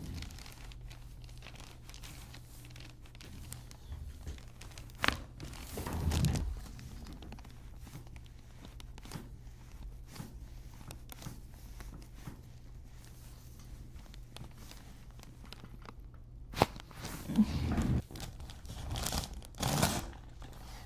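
Chiropractic adjustment: rustling and shifting of a body and clothing on the treatment surface, with a few sharp cracks. The loudest comes near the end and is a joint popping under the adjustment. A low steady hum runs underneath.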